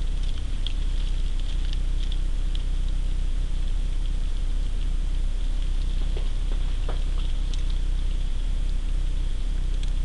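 Steady low electrical hum and hiss from the recording, with scattered light ticks and pattering from snow-laden branches in a snow storm.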